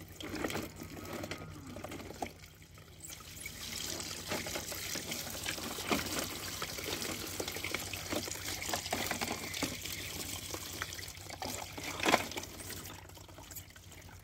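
Water from a tap pouring into a plastic bucket as muddy toy vehicles are rinsed and rubbed by hand. The flow grows stronger a few seconds in, with a few short knocks of toys against each other and the bucket.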